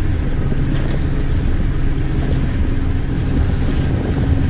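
A motorboat's engine running with a steady low drone, under a constant hiss.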